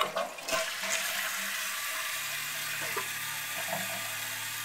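Toilet with a 2006 Vortens Vienna tank being flushed: a sharp clunk, then a steady rush of water.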